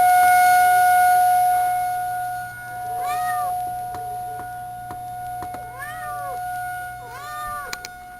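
A cat meowing three times, short rising-and-falling meows. A steady high tone sounds underneath, loudest in the first couple of seconds.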